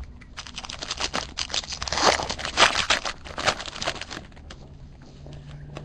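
Foil wrapper of a Bowman Chrome baseball card pack crinkling and tearing in the hands as the pack is opened and the cards handled: a dense run of crackles that thins out about four and a half seconds in.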